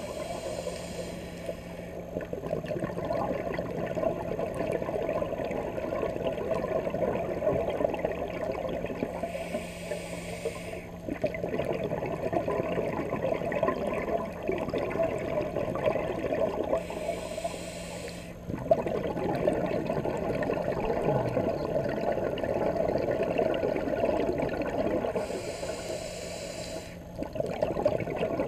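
Scuba diver breathing through a regulator underwater: four hissing inhales about eight seconds apart, each followed by a longer, louder rush of exhaled bubbles.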